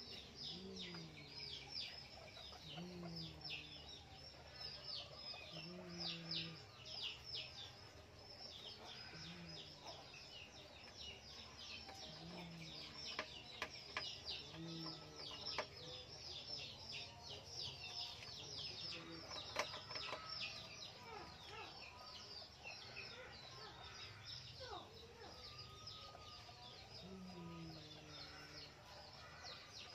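Many small birds chirping constantly in quick, high, falling notes, with a short low call repeating every two to three seconds.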